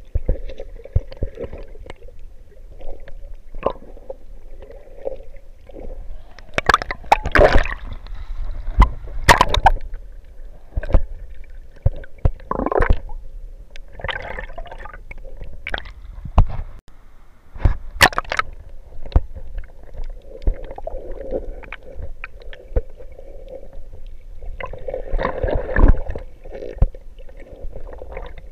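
Muffled underwater sound from a submerged camera: water gurgling and sloshing, broken by irregular sharp clicks and knocks, with the busiest stretches about seven to ten seconds in and again near the end.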